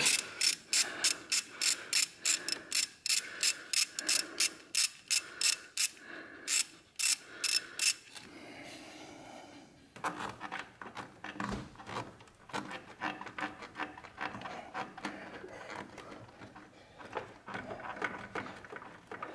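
Hand ratchet clicking steadily, about three clicks a second, as it loosens a hose clamp on the intake hose. It stops about eight seconds in. Softer irregular rubbing and crackling follow as the rubber intake hose is twisted and worked loose.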